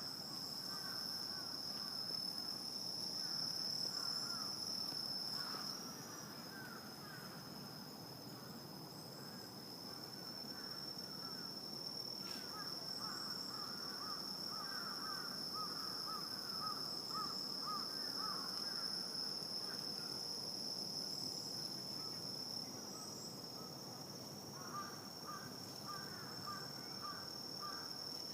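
Night insect chorus: a steady, unbroken high trill, with runs of rapid, lower chirping calls that come and go through it.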